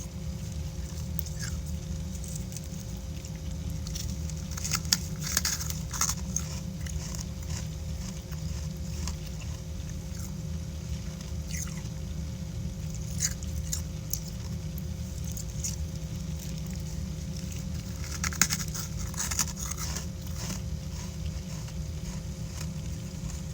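Soft freezer-frost chunks being squeezed and crushed, giving crackly crunching in a few bursts: around five seconds in, briefly near thirteen seconds, and again from about eighteen to twenty seconds. Underneath runs a steady low hum.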